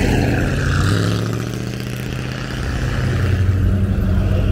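Classic American cars' engines running at low speed as the cars roll past one after another, a low steady rumble that eases off about halfway through and builds again as the next car, a first-generation Ford Mustang, comes near.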